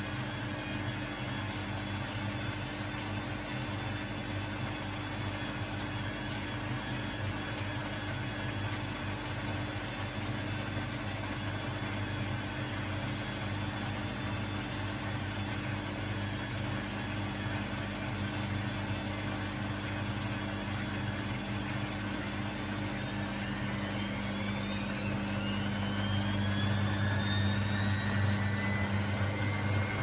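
Arçelik 7103 Y front-loading washing machine running with a steady electric hum, then its drum motor whining higher and higher in pitch from about two-thirds of the way in as the drum speeds up, the sound growing louder.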